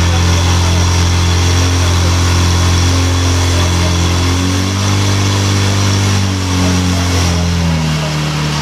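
Portable fire pump engine running hard at high revs, pumping water through the charged hoses to two nozzles. Its note is steady, shifting in pitch a few times as the load changes.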